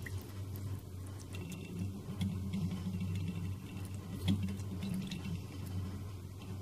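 Faint wet squelching and small clicks of a hand squeezing soaked, boiled tamarind and tomato pulp in a steel bowl, over a steady low hum.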